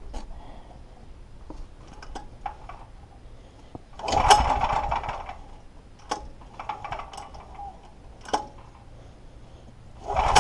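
Recoil pull-start of a Clarke FG5100ES generator's 13 HP petrol engine. Two pulls on the starter rope each whir the engine over for about a second and a half without it keeping running: one about four seconds in and one at the very end. Light clicks and knocks come from handling in between.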